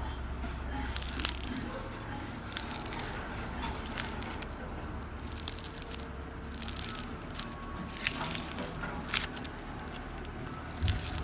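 Slime being pressed and stretched by hand, giving clusters of small crackles and pops every second or so over a steady background hiss.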